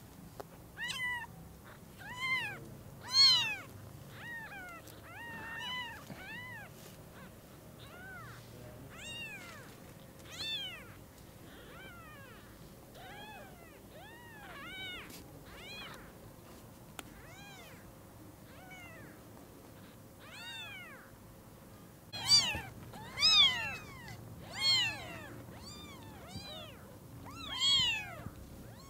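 Newborn kittens mewing: short, high-pitched, rising-and-falling cries, repeated in quick clusters, loudest about three seconds in and again in a run near the end.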